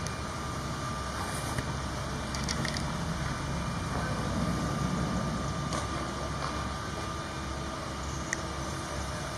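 Steady outdoor street noise with a low engine rumble, broken by a few faint clicks and knocks.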